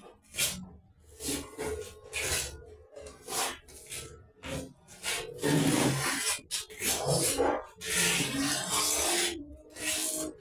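Repeated irregular rubbing and scraping strokes against ceramic wall tiles, each lasting about a second, with short gaps between them.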